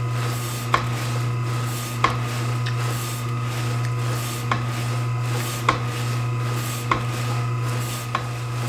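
Beswood 250 electric deli meat slicer running with a steady motor hum while its carriage is worked back and forth slicing hard salami, the blade rasping through the meat. Sharp clicks come about every 1.2 seconds.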